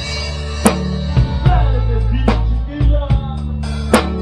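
Live band music: a drum kit struck in sharp hits roughly a second apart over long held bass notes, with a melody line gliding above.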